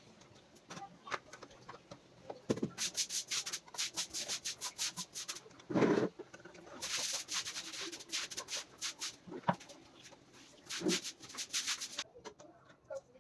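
Repeated rubbing and scraping with quick clicks, coming in short runs.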